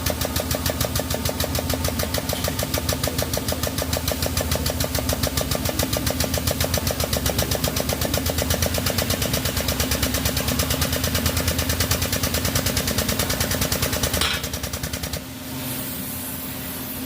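Hydraulic bend tester running with a rapid, even pulsing while it bends a welded test coupon. It stops about 15 seconds in, leaving a quieter hiss.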